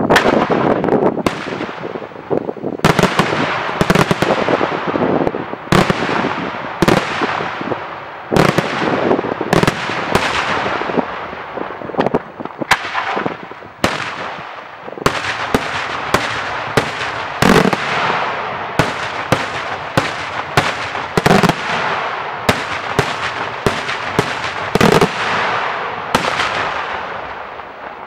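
Senatore Fireworks daytime display: a rapid string of loud aerial shell bangs, more than one a second and coming faster in the second half, each ringing on in echo.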